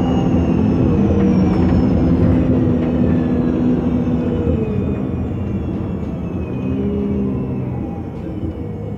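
Engine of a MAN NG 273 T4 articulated city bus running on LPG, with a faint high whine that slowly falls in pitch. The sound eases down gradually toward the end as the bus slows.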